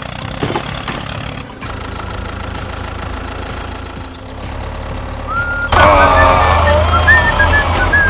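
Dubbed heavy-vehicle engine sound effect: a steady low rumble that starts abruptly about a second and a half in and gets much louder near the end, with wavering higher tones over it.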